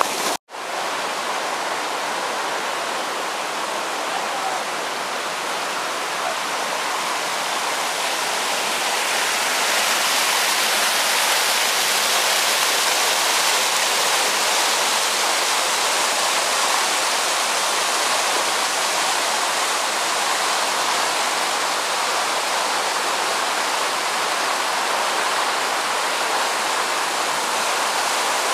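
Creek water rushing steadily over rock ledges, a continuous rush of white-water noise. It cuts out abruptly for a moment about half a second in, then returns and grows a little louder after about nine seconds.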